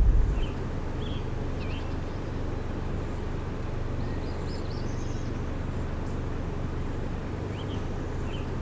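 Birds chirping now and then, short rising-and-falling notes, over a steady low hum and outdoor background noise.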